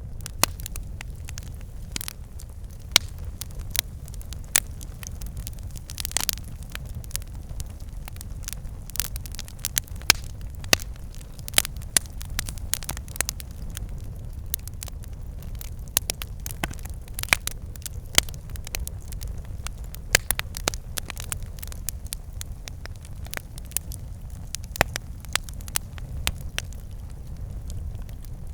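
Wood fire burning with a steady low rumble and frequent sharp, irregular crackles and pops.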